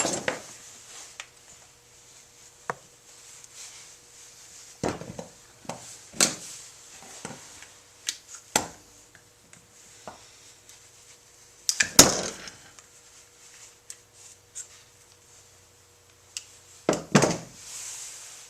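Handling noise as a new starter pull cord is fed through its pull handle: scattered clicks, knocks and rubbing at irregular intervals, the loudest clatter about twelve seconds in and another near the end.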